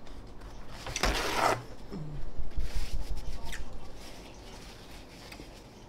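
A paper towel pulled from a roll, with a short loud rush about a second in, then rustling as it is rubbed between the hands.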